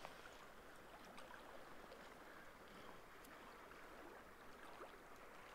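Near silence: faint lapping of calm sea water in the shallows, with a few faint ticks.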